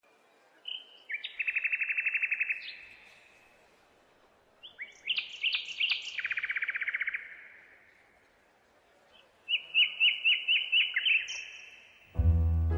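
A songbird singing three separate phrases a few seconds apart, each made of quick high notes and a fast trill. Music starts just before the end.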